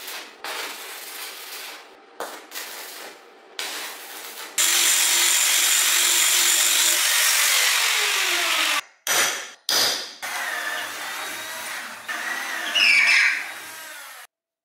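Steel fabrication in short cuts: arc-welding crackle first, then a loud power tool running on steel for about four seconds with its motor winding down, then an electric drill boring into steel.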